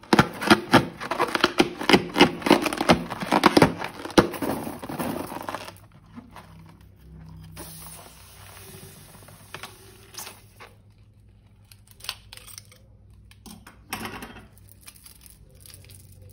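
Rubber balloon of slime being torn open and pulled apart: dense crackling and tearing for about the first six seconds, then only faint, scattered clicks.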